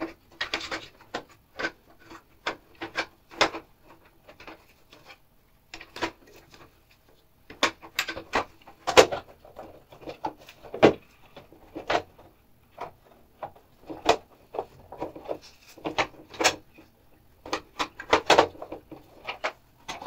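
Plastic washing machine door frame halves being handled and seated together: irregular clicks, knocks and rubbing of plastic on plastic.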